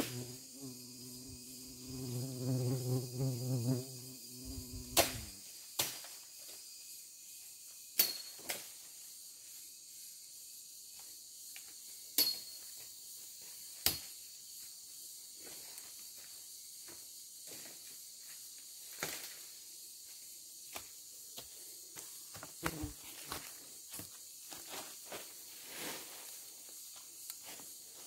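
Forest insects, crickets and the like, buzzing steadily and high-pitched, with a handful of sharp clicks and snaps scattered through. In the first five seconds a low, wavering hum sounds over them, then cuts off.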